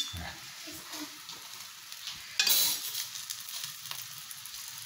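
Egg omelette frying in oil in a nonstick pan: a steady sizzle, with a spatula working in the pan and a short louder burst of noise about two and a half seconds in.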